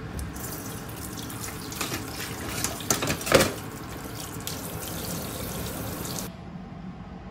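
Tap water running in a kitchen sink onto a plastic cutting board being rinsed, with a few clatters and one loud knock about three seconds in. The water sound stops abruptly about six seconds in.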